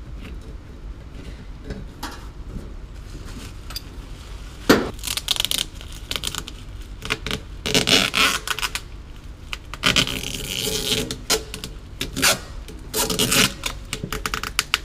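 Rustling plastic, clicks and scrapes as the cut end of a sprinkler pipe is wrapped in a plastic bag and sealed with adhesive tape to keep water from dripping. There is a sharp click about five seconds in, and a longer stretch of tape being pulled off the roll near the middle.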